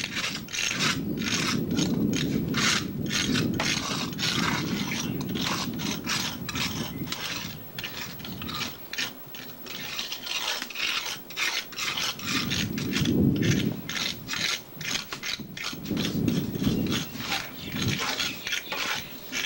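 Trowels scraping and spreading plaster on the stone top of a tomb in quick, irregular strokes, while a low rumble swells and fades at times.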